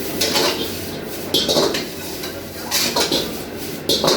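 Metal utensil clanking and scraping against a wok as noodles are stir-fried: about four sharp metallic strikes roughly a second apart, some of them ringing briefly.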